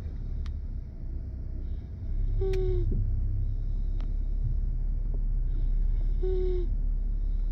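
Sleeping pet snoring: a short whistling note that drops slightly in pitch comes with each breath, twice here about four seconds apart, over a steady low rumble.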